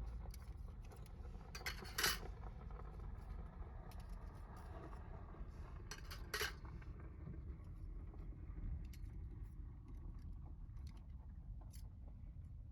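Metal camp gear being handled: scattered light clinks and taps, with two louder metallic clanks about two and six seconds in that ring briefly.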